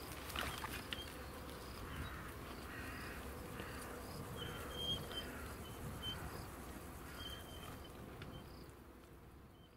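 Outdoor ambience of insects buzzing and a bird calling repeatedly, short calls about once a second with a few brief higher notes. It fades out near the end.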